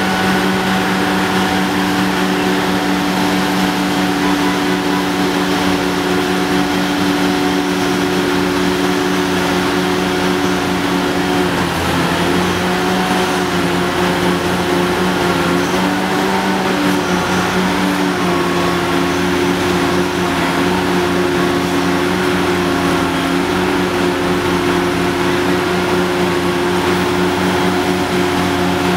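Hitachi ZX800 excavator's diesel engine running steadily while the machine swings, a constant hum whose pitch shifts slightly about twelve seconds in.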